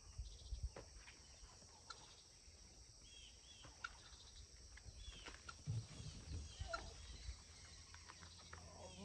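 Faint outdoor ambience: a few scattered bird chirps over a steady high insect hum, with occasional low bumps and rustles.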